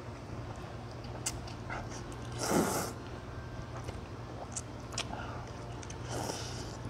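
A person slurping up mouthfuls of medium-thick wheat noodles with chopsticks, with a loud slurp about two and a half seconds in and a shorter one near the end, and a few small clicks in between.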